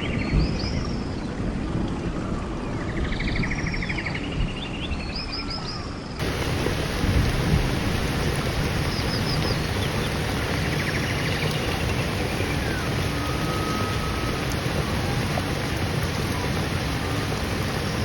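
Repeated animal calls, pulsed trills with short chirps above them, about every three seconds, over a steady rushing noise. About six seconds in the noise abruptly takes over and the calls carry on fainter.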